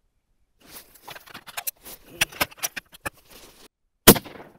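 A 7mm Tikka bolt-action hunting rifle fires a single shot about four seconds in, a sharp crack that dies away quickly. Before it comes a run of light clicks and rustling from the shooter handling the rifle.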